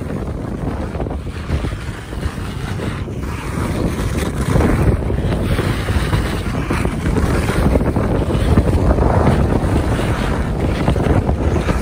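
Wind buffeting the microphone as the camera moves fast down a ski slope, a steady rumbling rush that grows louder about four seconds in.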